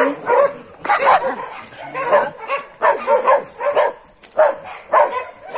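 Several dogs barking over and over, a few barks every second.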